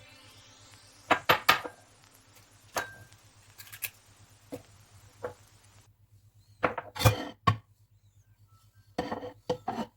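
Kitchen utensils and dishes clinking and knocking in scattered, irregular bursts of sharp clicks.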